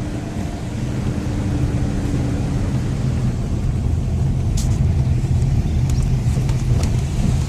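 A vehicle driving along a forest road: a steady low rumble of engine and tyres, with a few sharp clicks or rattles in the second half.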